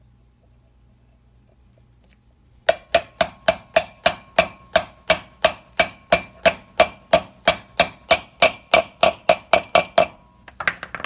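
A hammer tapping a 35 mm socket to drive the outer wheel bearing into a Geo Metro rear brake drum hub. About two and a half seconds in, a rapid, even run of about thirty sharp metallic strikes begins, roughly four a second, each with a brief ring, lasting about seven seconds, followed by a few lighter clinks.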